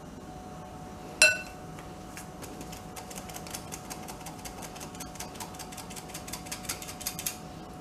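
Handheld stainless steel flour sifter being worked over a glass bowl, sifting flour and cocoa: rapid, uneven clicking several times a second from its mechanism. A single ringing clink about a second in.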